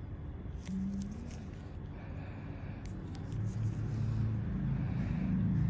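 Low background rumble and hum that grows louder about three seconds in, with a few faint clicks.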